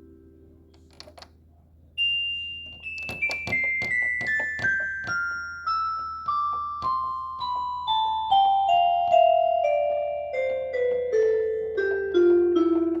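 Electronic keyboard: a held chord dies away, then a slow descending run of single notes steps down from high to low, about two to three notes a second.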